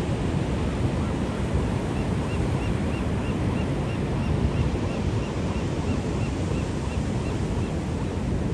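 Sea surf washing steadily, with wind buffeting the microphone. A faint high chirp repeats about three times a second from about two seconds in until near the end.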